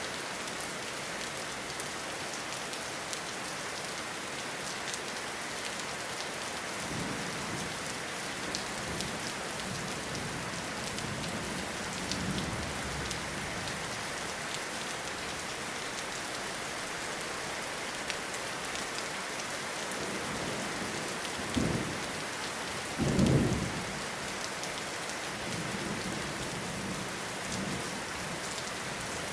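Steady rain falling on leaves and ground, with soft low rumbles of thunder. About three quarters of the way through come two short, louder low rumbles, the second the loudest.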